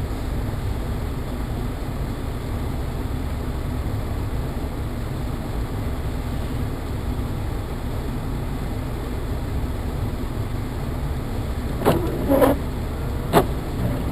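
Steady road and engine noise inside a moving car, then near the end three sharp knocks in quick succession.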